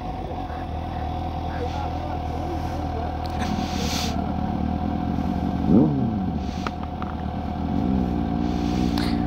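Motorcycle engine running steadily, with a short rise and fall in pitch about six seconds in.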